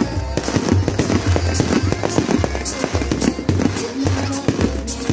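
Fireworks going off in rapid, overlapping bangs and crackles, over loud music.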